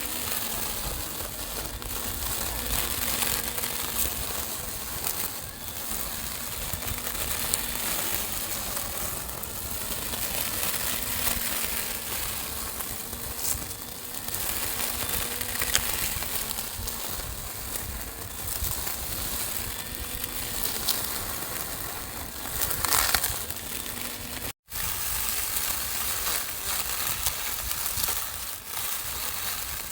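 Small lawn mower cutting grass: a continuous crunching, crackling chatter of blades through grass over a low motor hum that wavers slightly. The sound cuts out for an instant near the end.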